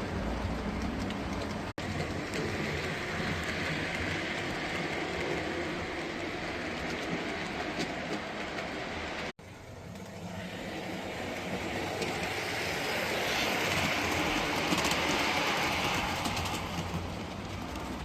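Model trains running on a layout's track, with a steady rolling rattle of wheels on rail. Two brief sudden gaps break it; then the sound grows louder from about ten seconds in, loudest around fifteen seconds, and eases near the end, as a train passes close.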